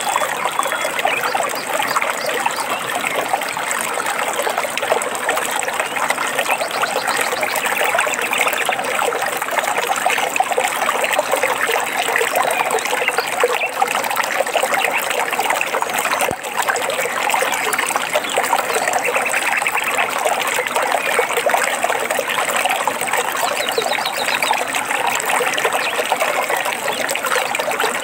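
Stream water trickling and splashing steadily, with birds chirping faintly now and then.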